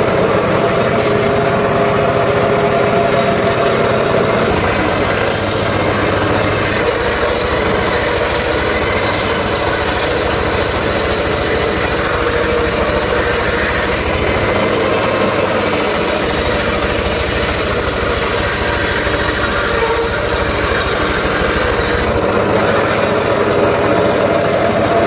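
Small-engine-driven saw running steadily on sengon wood, with a brighter, hissier edge from about four seconds in until near the end.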